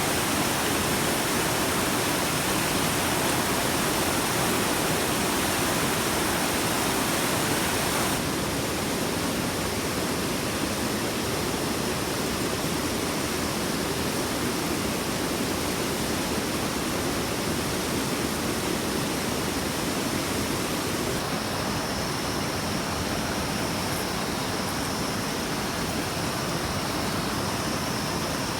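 Steady rushing water, a continuous full hiss. Its tone changes abruptly twice: it loses some brightness about eight seconds in, and shifts again about two-thirds of the way through.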